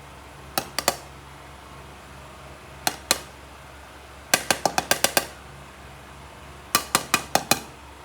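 Sharp clinks of a utensil knocking against a cooking pot, in four quick clusters: three, then two, then a rapid run of about nine, then about six.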